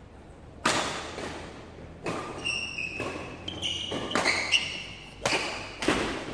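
Badminton rackets smacking the shuttlecock back and forth in a fast doubles rally, about six sharp hits roughly a second apart, each echoing in the hall. Short high squeaks of court shoes on the floor come between the shots.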